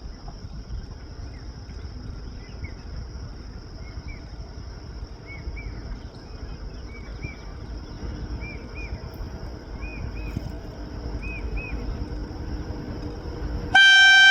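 A cuckoo gives repeated two-note calls over a steady, high-pitched insect drone and a low rumble. Near the end, the horn of a WAP-7 electric locomotive cuts in abruptly and loudly.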